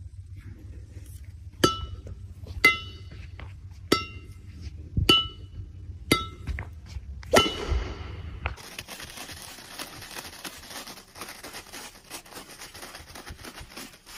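A shuttlecock struck six times with a badminton racket, about once a second, each hit a sharp ping of the strings, the last one the loudest. About 8.5 s in, this gives way to stiff paper crinkling and rustling as it is folded by hand.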